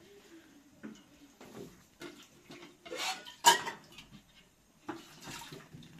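Metal dishes and kitchen utensils clinking and clattering as they are handled at a basin of water, with one loud clank about three and a half seconds in.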